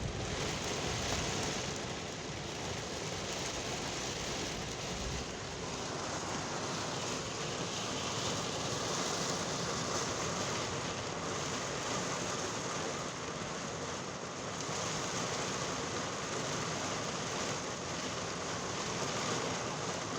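Steady rain and wind noise from a thunderstorm, heard from inside a vehicle.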